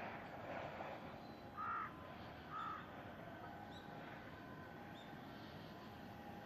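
A crow cawing twice, about a second apart, against a faint steady background hum.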